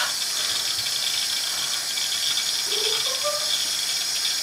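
Bathroom sink tap running in a steady hiss, with a couple of short, faint rising tones about two-thirds of the way through.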